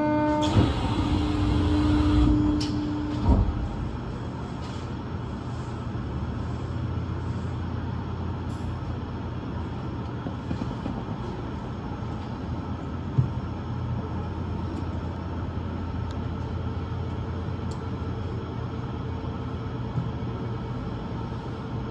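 Osaka Metro New Tram, a rubber-tyred automated guideway train, running, heard from inside the front of the car as a steady low rumble. In the first few seconds a held tone and two sharp knocks sound over it, and a faint steady whine joins later on.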